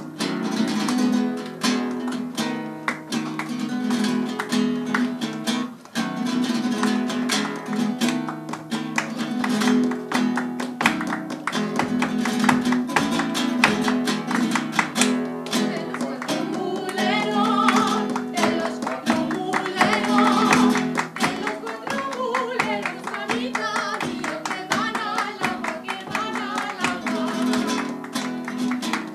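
Nylon-string guitar playing a flamenco-style piece, with several people clapping their hands along in rhythm. A voice starts singing over it about halfway through.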